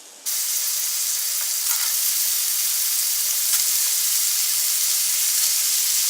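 Bacon and butter frying in a hot cast iron skillet: a steady loud sizzle that starts abruptly about a quarter second in, with a few faint pops.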